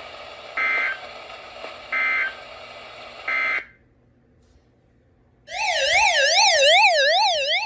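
Three short screeching digital data bursts, the EAS/SAME end-of-message code on NOAA Weather Radio, about a second and a half apart. After a short pause, an electronic alert siren starts about five and a half seconds in, warbling up and down about twice a second.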